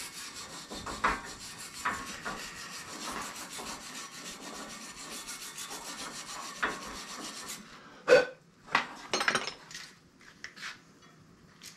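Wire brush scrubbing rapidly back and forth over the rusty, grimy threads of a 1941 Colson bicycle's front fork, cleaning them so the parts will thread off. The brushing stops after about seven and a half seconds, followed by a few sharp metal knocks and lighter taps.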